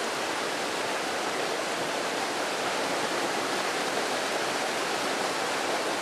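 Mountain stream rushing over granite rocks and small cascades: a steady, even rush of water.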